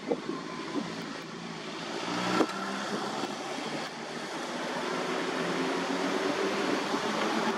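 A motor vehicle's engine running steadily nearby, getting louder in the second half, over outdoor background noise.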